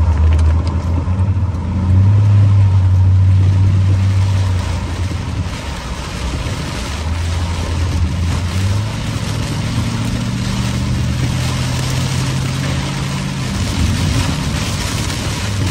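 Car engine heard from inside the cabin, pulling away and accelerating, its note stepping up and down as it shifts. Under it is the steady hiss of heavy rain on the car, a little stronger near the end.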